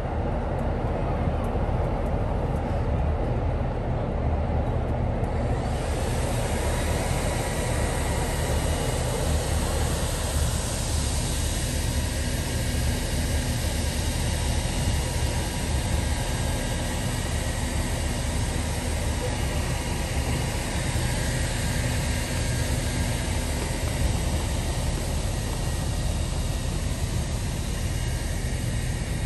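An engine running steadily, a low constant rumble under a steady hiss, with no change in speed.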